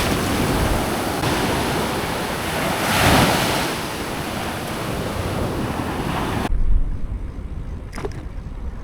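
Sea waves washing on the shore with wind buffeting the microphone, one wave surging louder about three seconds in. The sound drops abruptly to quieter wind rumble near the end.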